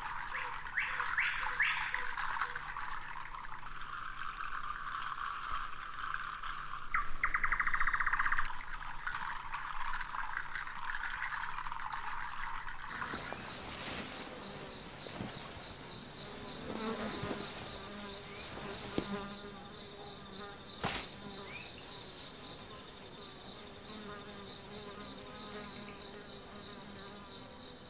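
Insects in tropical forest buzzing and trilling, with a louder rapid trill about seven seconds in. From about thirteen seconds a steady, high-pitched insect chorus takes over, with a few faint short chirps.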